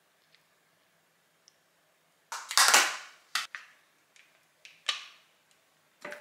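Kitchen handling noises as mascarpone is spooned from a plastic tub into a glass mixing bowl. There is a loud, noisy handling sound about two and a half seconds in, followed by a handful of short clicks and taps of the spoon against the tub and the glass bowl.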